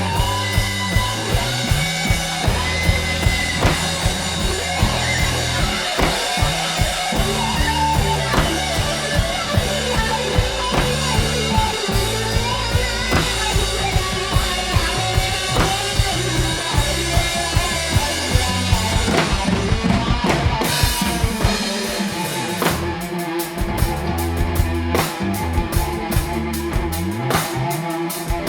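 A live rock/funk trio plays an instrumental passage: drum kit keeping a steady beat under bass guitar and electric guitar. About twenty seconds in, the cymbals drop out briefly, then come back as quick ticks.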